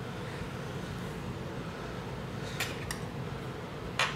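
Steady low hum of room noise with a few small clicks from handling metal tweezers and tablet parts: two faint clicks about two and a half seconds in and a sharper click near the end.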